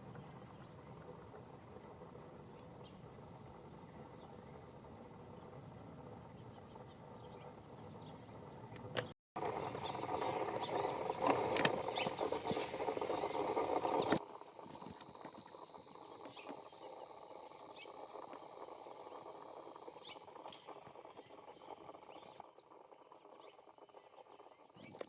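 Outdoor field ambience: a steady high-pitched drone with scattered short high calls. It cuts out completely about nine seconds in, then a louder, noisier stretch of about five seconds before it drops back to quieter ambience.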